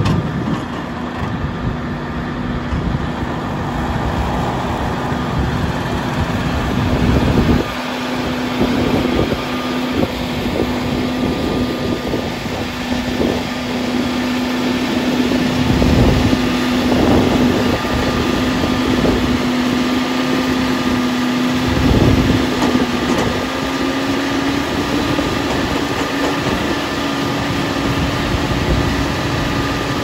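JCB telescopic wheel loader's diesel engine running steadily with a constant drone, its pitch rising a little about two-thirds of the way through as the boom lifts the grab. A few heavy knocks come along the way.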